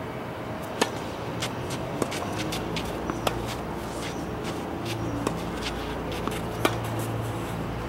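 Tennis rally: sharp pops of a racket hitting the ball, a loud serve about a second in and a loud forehand near the end, with fainter ball strikes in between. A steady low hum runs underneath.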